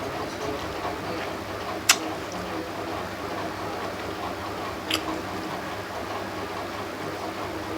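A person eating a meal of rice and fish curry: soft chewing and squishing, with two sharp clicks about two and five seconds in.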